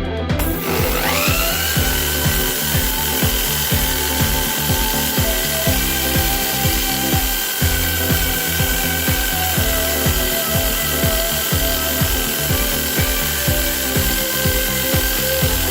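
A small electric motor spins up with a rising whine about half a second in, then runs steadily at speed, while the washing-machine motor rig is being spun up for a generator test. Background music with a steady beat plays underneath.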